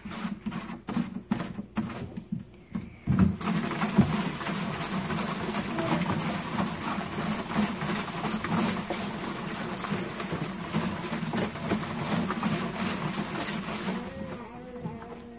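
Water sloshing and rattling inside a plastic jar with a long neck as it is shaken hard by hand to clean it. The shaking is rapid and continuous from about three seconds in and stops shortly before the end. A few separate knocks from handling the jar come first.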